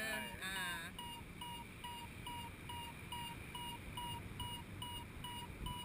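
Paragliding variometer beeping in a steady run of short, same-pitched beeps, about three a second: the instrument's sign that the glider is climbing in lift. Wind rushes faintly underneath, and a brief wavering, voice-like sound comes near the start.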